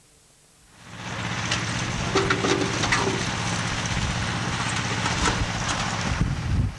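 Outdoor field sound that starts about a second in: wind on the microphone over a steady low engine hum, with a few sharp clicks.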